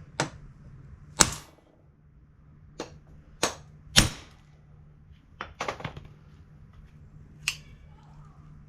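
Hammer blows driving a hinge pin out of a 1970 Chevelle door hinge, about nine sharp metal strikes at an uneven pace, the hardest about a second in and at four seconds. The pin is being started out of the hinge.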